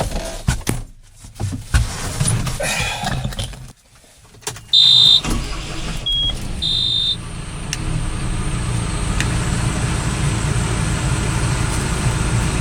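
Knocks and rattles of climbing into a tractor cab, then the tractor's engine starts about five seconds in, with a few high electronic warning beeps sounding as it catches, and runs steadily after that.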